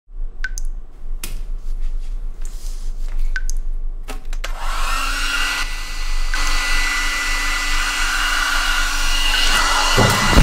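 A few small sharp clicks, then a hair dryer switched on about four and a half seconds in, running steadily with a high whine over its airflow. Just before the end a sudden loud low rumble sets in.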